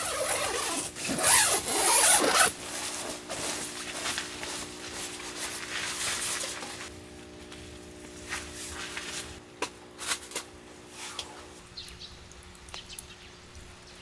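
Zipper of a Minimal Works V-House tent door being pulled open in quick strokes, loudest in the first couple of seconds, followed by softer rustling of the tent fabric and a scattered run of light taps.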